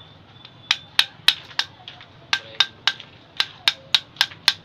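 About a dozen sharp metal taps in three quick runs, roughly three a second, each ringing briefly: a metal tool striking a scooter's centrifugal clutch assembly.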